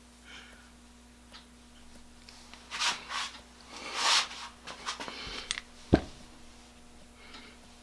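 Small metal parts of an eggbeater drill chuck being handled while its springs and jaws are fitted: clicks and rubbing, two short hissing rushes near the middle, and a sharp knock about six seconds in.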